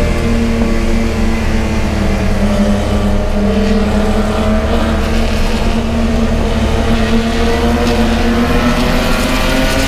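Race car engine running hard at high revs, its pitch holding fairly steady with small rises and dips.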